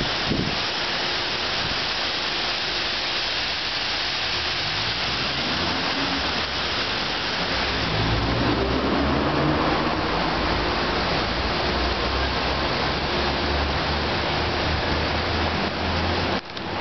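Steady outdoor noise, an even hiss, with a low rumble joining about eight seconds in.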